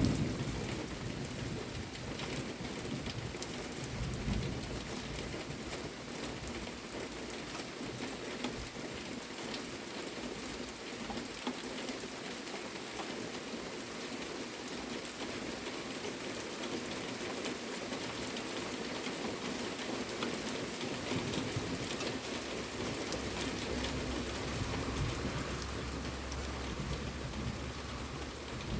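Steady rain from a summer thunderstorm falling and pattering on surfaces. A low rumble of thunder comes about four seconds in, and a longer low rumble builds near the end.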